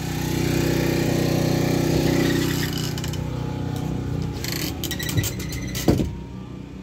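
A small engine running steadily, louder for the first couple of seconds and then fading, with a few sharp clicks later on.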